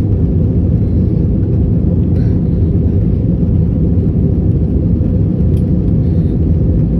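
Steady low rumble of an Airbus A320-family airliner's cabin in flight: the jet engines and airflow heard from a window seat.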